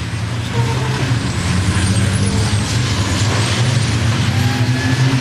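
Several racing trucks' turbo-diesel engines running together as the pack goes through the corner, a steady low drone with a hiss over it.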